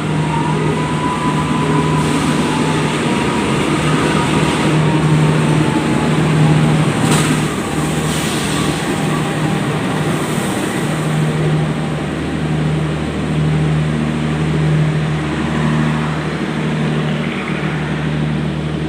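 Diesel-hauled passenger train pulling into a station: a steady low engine hum under continuous wheel-on-rail noise, with a thin high squeal that fades out over the first few seconds.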